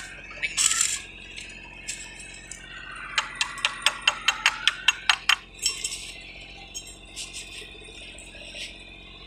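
A quick run of about a dozen light metal-on-metal taps, about five a second, starting about three seconds in, with brief scraping just before and after.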